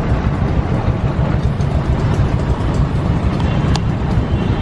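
Motorcycles and other vehicles in heavy city traffic running close by, a steady low rumble, with one sharp click a little before the end.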